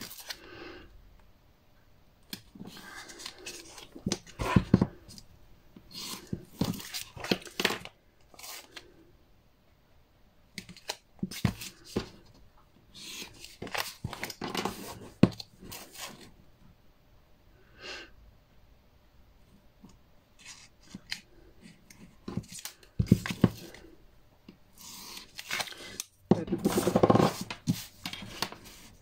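Paper and card being handled for scrapbooking: irregular bursts of crisp rustling, scraping and clicking, with short pauses between them.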